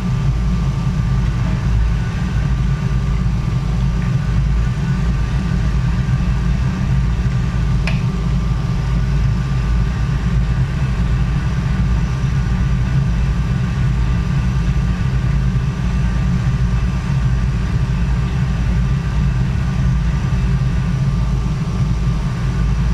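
Steady low equipment hum with a faint steady high tone above it, and one short click about eight seconds in.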